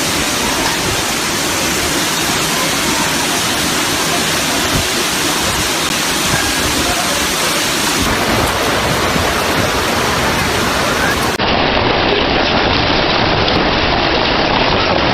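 A dense, steady rush of a heavy hail and rain storm pouring down. The sound changes abruptly twice, about eight and about eleven and a half seconds in.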